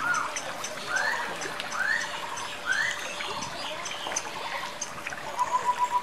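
Water trickling and splashing down a tiered fountain, with birds calling over it: three short rising calls in the first half and a fast, evenly pulsed trill starting near the end.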